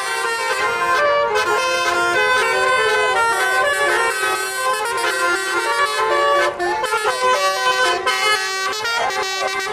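Bus telolet horn playing a quick melody, several horn tones sounding together and stepping from note to note.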